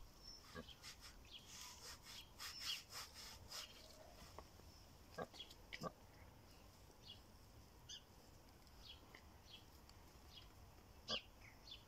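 Pig rooting and feeding with its snout in the soil: faint, scattered short clicks and crackles, busiest in the first four seconds, again around five to six seconds in, and once near the end.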